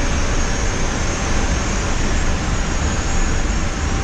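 Steady rush of air and low machinery hum from the avionics cooling and ventilation in an Airbus A350's electronics compartment, with a thin steady high whine on top.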